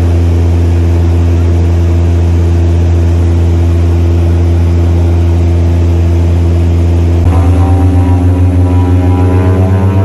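Seaplane's propeller engine droning steadily, heard from inside the cabin in flight. About seven seconds in, the sound changes abruptly to a pulsing beat, about four or five a second, rising in pitch, as the propeller runs with the plane on the water.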